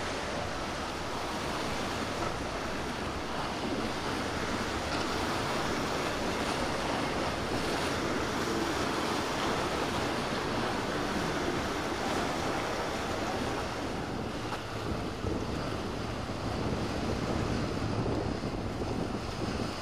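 Steady wind noise on the microphone over the wash of sea waves.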